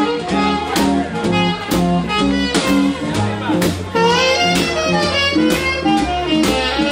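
Live swing band playing for dancing: a bass line stepping from note to note about twice a second, regular cymbal strokes, and chords, with a saxophone among the horns. About four seconds in, a lead line plays bending, wavering notes.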